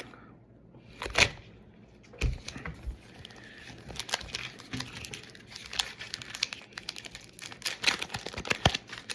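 Foil Pokémon card booster pack wrapper being torn open and handled, a run of irregular crinkling crackles and rustles, the sharpest about a second in and near the end.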